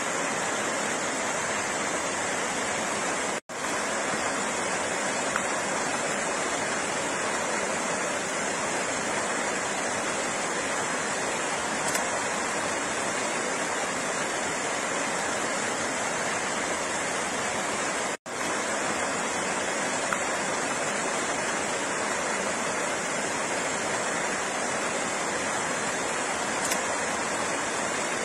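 Flowing water rushing steadily, an even, unchanging wash of noise. It cuts out for an instant twice, about 15 seconds apart.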